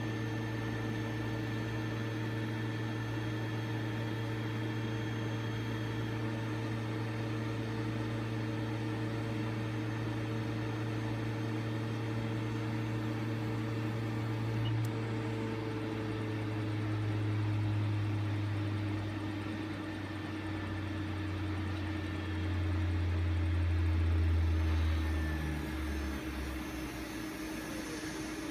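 Thermo IEC Multi RF refrigerated centrifuge running at 5000 rpm with a steady hum. About 15 seconds in, after a click as the stop button is pressed, it spins down: the hum drops in pitch in steps, swelling twice, and dies away near the end as the rotor comes to a stop.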